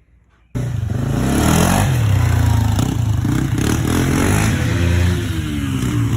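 Freshly rebuilt Honda TRX400 ATV engine running and being revved, its pitch rising and falling. It cuts in suddenly about half a second in.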